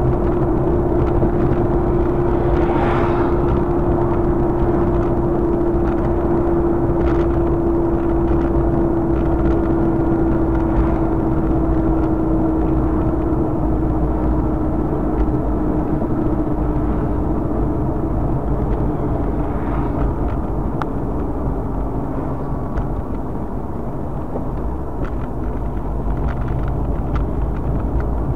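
Car driving, heard from inside the cabin: steady road and engine noise with a humming tone that slowly drops in pitch over the first twenty seconds, and a few faint knocks.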